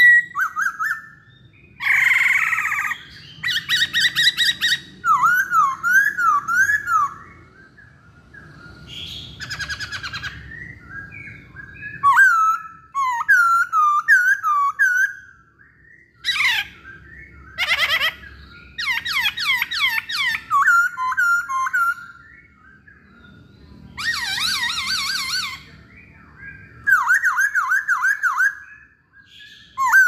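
Black-throated laughingthrush singing loudly in repeated phrases of clear, rising-and-falling whistled notes, broken up by harsh rasping calls and quick rattling runs.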